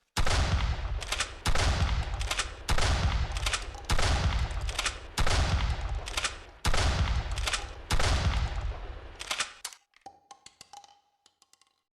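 Mossberg 590 pump-action shotgun firing seven shots about a second and a quarter apart, each with a long echoing tail and short clacks between shots. After the last shot comes a run of light metallic clicks.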